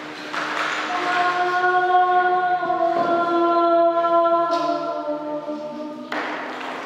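Background choral music: voices singing long held notes in chant-like harmony, the chord shifting every second or two, with a breathy rush of noise about six seconds in.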